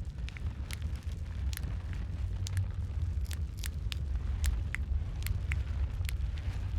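Wood fire crackling in a fireplace: sharp, irregular pops, a few each second, over a steady low rumble of the flames.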